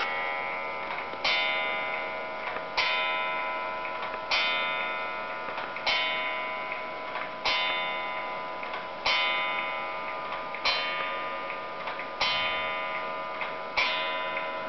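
German mechanical wall clock's gong struck by its hammer, ringing out the hour: nine strikes about one and a half seconds apart, each ringing on and fading into the next. The clock's pendulum ticks steadily beneath.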